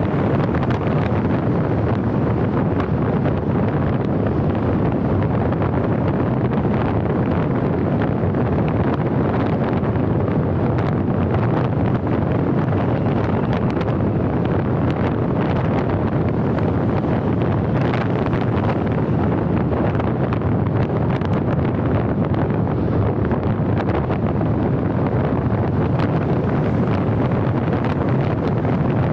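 Steady wind rush over the microphone of a moving car, with the car's road and tyre noise underneath.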